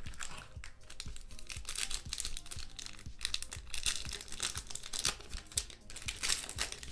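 Foil wrapper of a Topps Chrome trading card pack crinkling as it is pulled from the box, then torn open.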